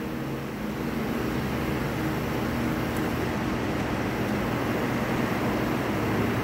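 Steady machine hum, a low drone of several held tones under an even hiss, unchanging throughout.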